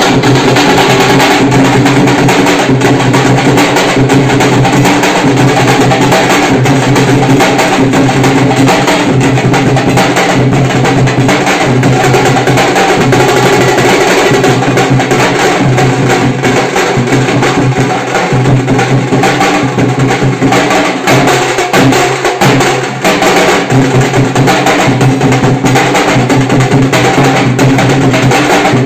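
A dhol band of large double-headed barrel drums playing a loud, fast, continuous beat. The drumming thins briefly about three-quarters of the way through, then picks up again.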